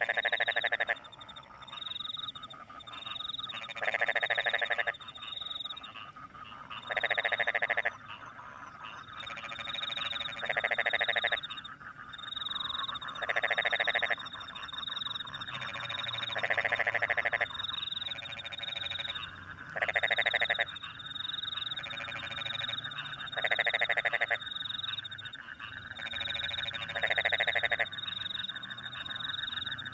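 Frogs calling: one loud, rapidly pulsed call about a second long repeats roughly every three seconds over a steady chorus of other frogs, while crickets chirp in short high notes throughout.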